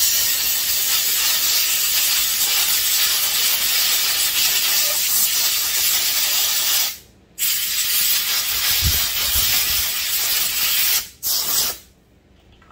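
Compressed-air blow gun hissing as it blasts old glue residue out of a Husqvarna 272XP chainsaw's plastic recoil starter housing. One long blast stops about seven seconds in, a second blast lasts about four seconds, and a short burst comes near the end.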